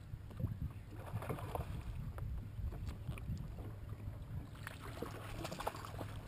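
Steady low rumble of wind and water around a bass boat on open water, with scattered light clicks and knocks while a fish is reeled in.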